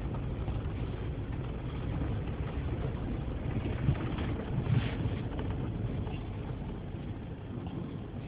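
Vehicle running, heard from inside: a steady low rumble, with two brief louder knocks about four and five seconds in.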